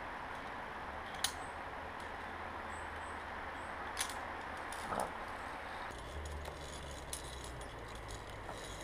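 Via ferrata climbing gear clinking: carabiners and metal hardware knocking against the steel cable and iron rungs, three sharp clinks in the first five seconds and lighter ticks after, over a steady hiss.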